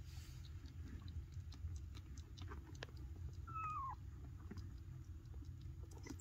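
A newborn Maine Coon kitten gives one short, thin mew that slides down in pitch, about three and a half seconds in, over faint small clicks and rustling.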